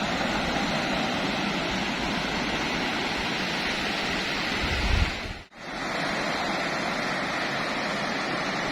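Ocean surf washing onto a sandy beach: a steady rushing of breaking waves that cuts out for a moment about five and a half seconds in.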